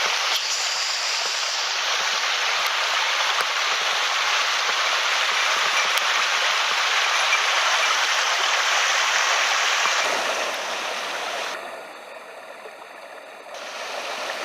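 Small mountain headwater stream rushing over rocks, a steady rush of water; it drops away sharply about ten seconds in and comes back near the end.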